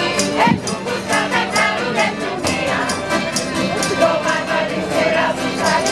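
Live folk dance music on accordion, with tambourine jingles keeping a steady beat and voices singing along.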